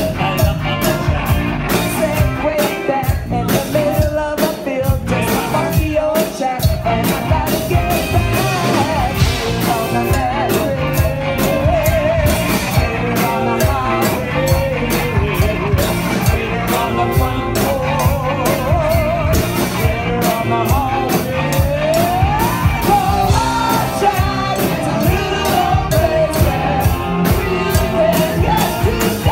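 Live rock band playing loud, with singing, electric guitar and drums keeping a steady beat.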